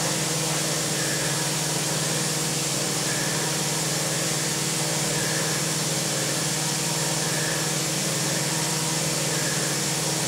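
CNC milling machine running, its spindle driving a fine end mill through a metal plate: a steady machine hum and hiss, with a faint higher note coming back about every two seconds.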